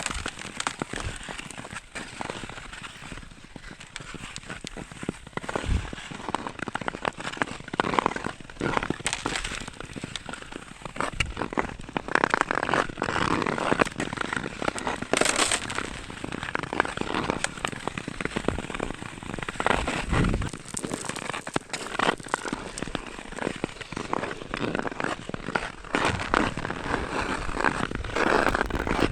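Ice skate blades scraping and gliding over thin black ice with a crust of ice crystals on top, the ice crackling and giving many sharp cracks and snaps under the skater.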